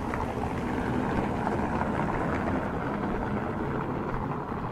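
City street traffic noise, a steady rumble of passing vehicles that swells a little in the first couple of seconds and eases off near the end.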